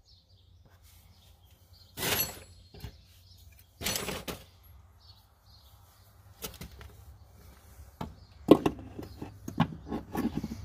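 Scattered knocks and clanks of tools and suspension parts being handled under a car while a rear upper control arm is fitted: a sharp knock about two seconds in, another near four seconds, then quicker rattling and knocking near the end, over a faint low hum.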